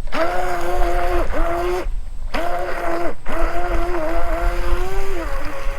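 Electric motor of a battery-powered RC racing boat whining under throttle over a low rumble. It cuts off briefly about two seconds in and again a second later, then runs on, easing slightly lower in pitch near the end.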